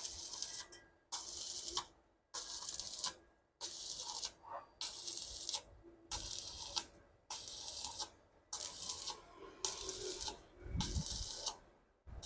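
Stick-welding arc from a Yoko AGC 220 inverter welder on a 2.5 mm electrode: a crackling hiss that starts and stops about once a second as the arc is struck and broken again and again. The arc catches quickly on each strike.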